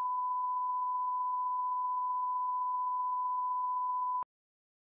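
Colour-bar line-up test tone: one steady, pure beep at a single pitch, cutting off abruptly about four seconds in.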